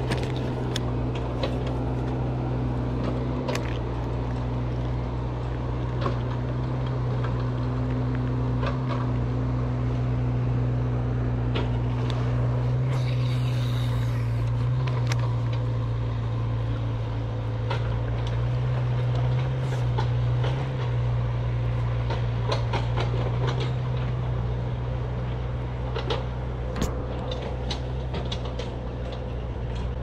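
A steady low mechanical hum throughout, with scattered short light clicks over it.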